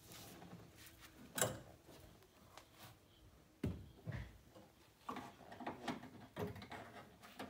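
Metal clicks and knocks of a lock-cylinder retaining clip being worked back into place inside a car door: a sharp click about a second and a half in, two more knocks in the middle, then a run of small taps and clicks near the end.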